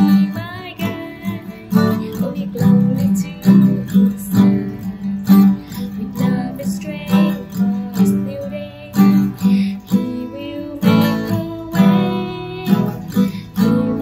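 Cutaway acoustic guitar strummed in a steady rhythm of chords, with a woman singing along softly.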